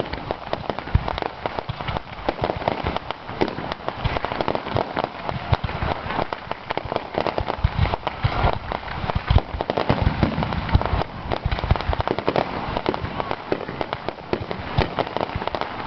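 Fireworks display: a dense, continuous barrage of crackling bursts mixed with deep booms.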